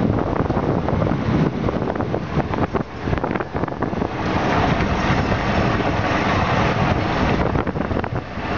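Wind noise on the microphone over the running of a moving golf cart, the wind hiss growing louder about halfway through and easing near the end.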